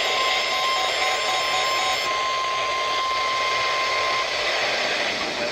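NOAA Weather Radio 1050 Hz warning alarm tone, a single steady beep heard through receiver static, signalling that a warning message is about to be broadcast. The tone cuts off about four seconds in, leaving the hiss of the radio.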